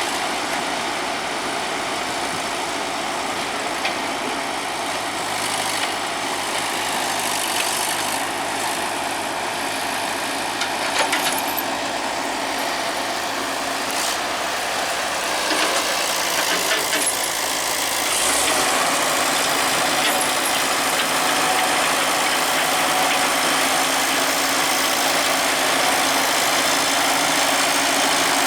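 Diesel engine of heavy farm and earthmoving machinery running steadily with a low throb. A few sharp knocks come about eleven seconds in, and the engine note grows louder and holds from about eighteen seconds in.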